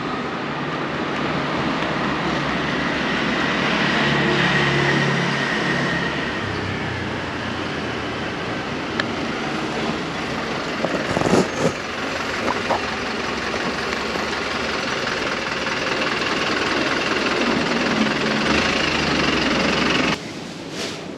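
Electric commuter train running, a steady rumble with a faint motor whine that slides in pitch and a few clicks and knocks around the middle. The sound cuts off abruptly near the end.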